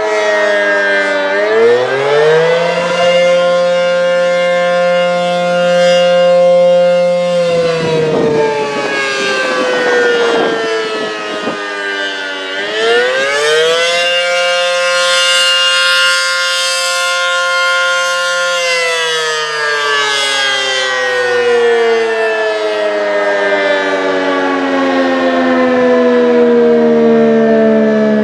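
ACA P-10 rotating outdoor warning siren sounding the attack signal. Its pitch rises, holds for several seconds and falls, then rises and holds again before sliding slowly down.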